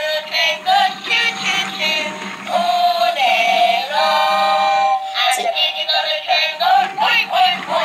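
Electronic sung song playing from a Peppa Pig Grandpa Pig toy train's built-in sound unit, a melodic voice line with little bass.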